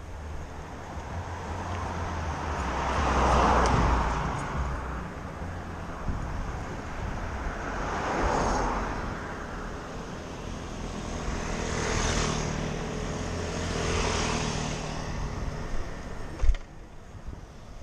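Cars passing in street traffic one after another, about four times, each swelling up and fading away, over a steady low rumble of wind and road noise on a bike-mounted camera. A single sharp knock near the end.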